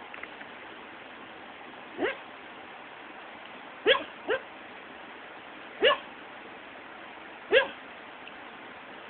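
A sleeping dog vocalising in its sleep while dreaming: five brief yips or whimpers, each rising in pitch, spaced about two seconds apart, two of them close together a little before the middle.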